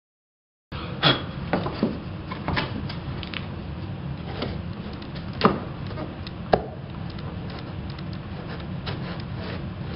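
Laminate plank and laminate stair nose piece handled and set against a bare stair tread: light wooden knocks and rubbing, with several sharp taps over a low steady room noise, starting just under a second in.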